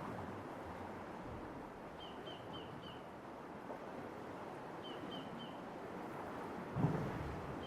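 Light sea waves washing through a rock arch tunnel as a steady wash of water, with a stronger low surge near the end. A bird calls twice, each time a quick run of three or four short, high, falling chirps.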